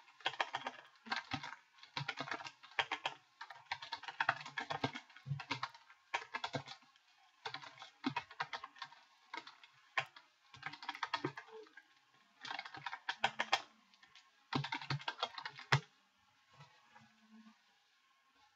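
Typing on a computer keyboard: bursts of rapid key clicks with short pauses between them, stopping a few seconds before the end.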